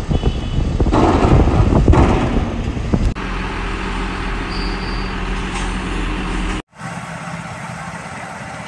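Heavy construction machinery in three short clips: first an excavator tipping a bucketload of soil into a dump truck's bed, a loud noisy rush with knocks over the engines; then, after a cut, a Sakai road roller's diesel engine running steadily with a low hum; then, after a brief dropout, a SANY excavator's engine running more quietly.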